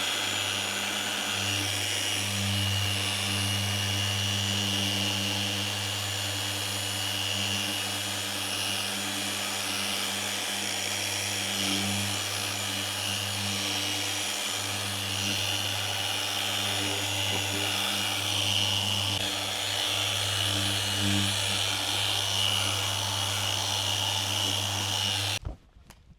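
Handheld power tool running steadily with a constant hum, a high whine and a rubbing sound against a surface, switched off abruptly near the end.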